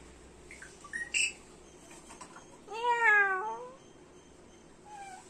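Pet parrot giving a short chirp about a second in, then one drawn-out mewing call that rises and falls in pitch, about three seconds in. The call is like a cat's meow.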